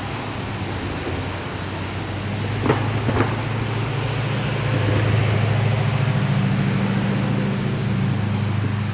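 A steady low mechanical rumble that swells a little about halfway through, with two sharp clicks a half-second apart about three seconds in.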